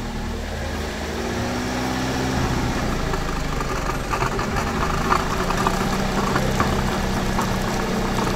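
Small car engine revved up about a second in, then held at a raised, steady speed, to clear it out after a WAKO'S RECS intake-cleaner treatment.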